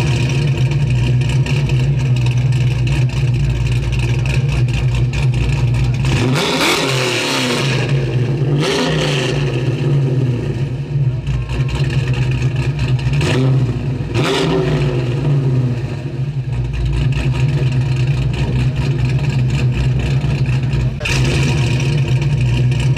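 Car engine running loud and steady, with the pitch sweeping up and down a few times, about six, nine and fourteen seconds in.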